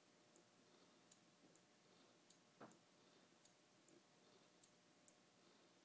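Homemade coffee-cup Stirling engine running slowly, making faint, light clicks in a steady rhythm, two clicks about every second, as its flywheel turns. A single brief soft knock about two and a half seconds in.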